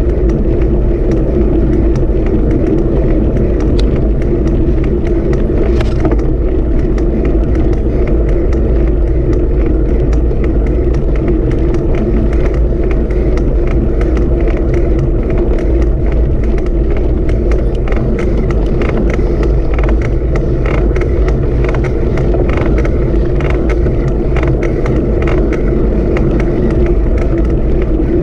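A vehicle in motion: a loud, steady low rumble with many small irregular clicks and rattles throughout.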